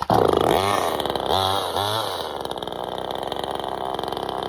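Neotec NCS2500 top-handle two-stroke chainsaw restarting warm on the first pull: it catches at once, revs up and down about three times, then settles into a steady idle.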